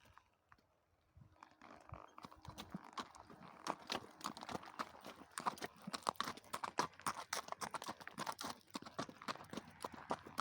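A horse's hooves clip-clopping on the ground, a rapid, irregular run of hoof strikes that starts after about a second and a half of near silence.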